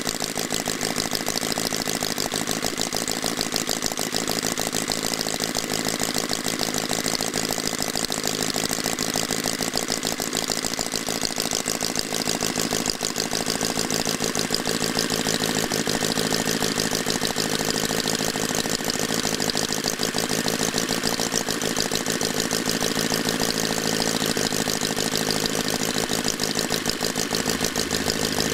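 L.C. Mason 'Mastiff' 24 cc four-cylinder, horizontally opposed four-stroke petrol model engine running steadily, its firing a fast, even stream of pulses.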